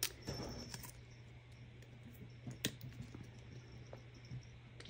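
Faint, scattered clicks and taps of art supplies being handled on a table, with a sharper click right at the start and another a little past halfway.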